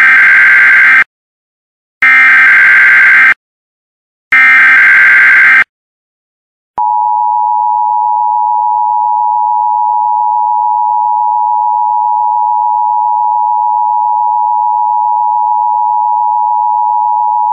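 Emergency Alert System SAME header: three harsh digital data bursts about a second each, a second apart. About seven seconds in, the steady two-tone EAS attention signal starts and holds.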